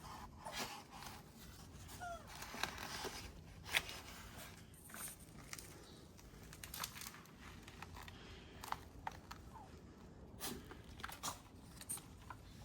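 Faint rustling and scraping with scattered light clicks and knocks.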